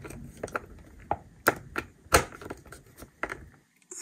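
A dozen or so irregular sharp clicks and light knocks of hand-work at a door frame, the loudest a little over two seconds in.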